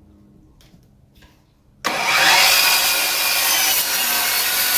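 Handheld electric circular saw starting up suddenly about two seconds in and cutting through a wooden drawer panel, its motor whine running loud and steady under the noise of the blade in the board.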